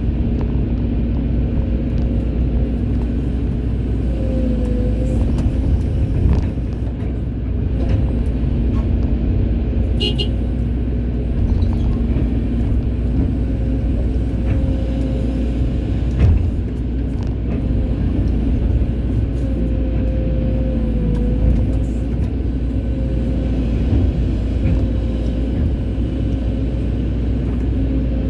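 Hydraulic excavator's diesel engine running steadily at working revs, with a deep rumble and a hum that sags briefly twice under hydraulic load. A few short knocks.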